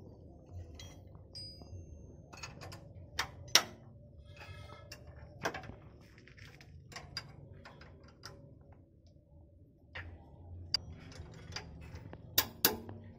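Steel spanner clinking and clicking against the alternator's mounting bolts and brackets on a truck diesel engine as the alternator is being unbolted: scattered sharp metallic clicks, the loudest about three and a half seconds in and two close together near the end, over a low steady hum.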